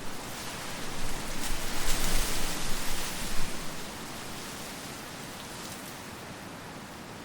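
Ambient noise bed: a steady, even rushing hiss that swells louder from about one to three and a half seconds in, then settles to a constant level.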